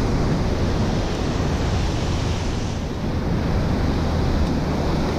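Fast river water rushing over a low weir and through the riffle below it: a loud, steady rush of whitewater.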